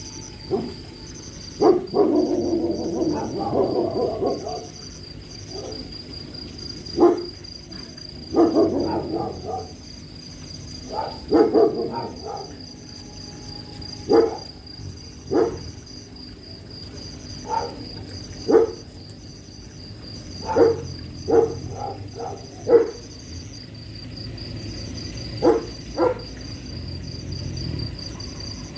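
A sleeping dog snoring: short, rough snores about every one to two seconds, two of them longer and harsher early on. Crickets chirp steadily behind.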